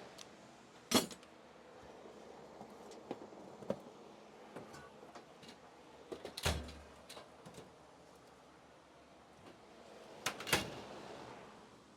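Scattered knocks and clicks of tools and parts being handled during hand work on a car's cooling hoses. Sharp knocks come about a second in, about six and a half seconds in (this one with a dull thump), and twice in quick succession near the end, with lighter ticks between them.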